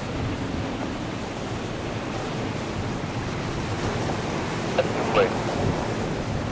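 Steady wind rush on the microphone over the low, even rumble of an Embraer E-Jet airliner's engines at taxi power. Two brief, short sounds come about five seconds in.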